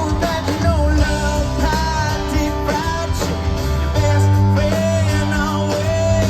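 A live rock band playing amplified music: a wavering melodic lead line over steady, sustained bass notes.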